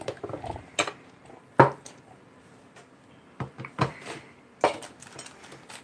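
Tableware and baked oyster shells clacking and clinking at the table: about five short, sharp knocks spread apart, the loudest about one and a half seconds in.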